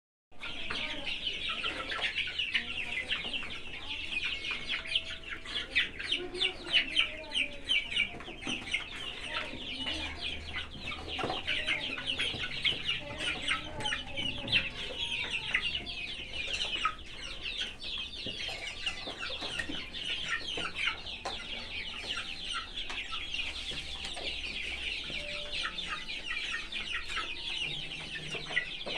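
A flock of six-week-old desi chicks peeping and cheeping without pause, many short high calls overlapping into a continuous chorus, with a few lower clucks mixed in during the first several seconds.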